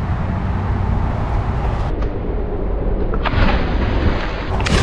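Steady wind buffeting the microphone, with a splash of a person jumping into a pond about three and a half seconds in.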